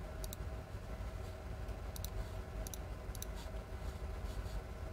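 Short sharp clicks, mostly in quick pairs, four or five times, over a steady low hum.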